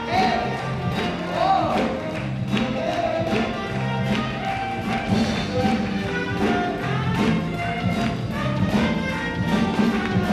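Live band playing a blues number with a steady drum beat, saxophone and piano.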